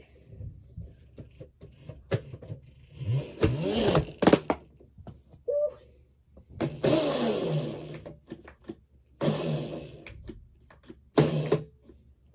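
A small bike being ridden hard: four rough scraping bursts a couple of seconds apart, some with a wavering squeal, and scattered knocks between them.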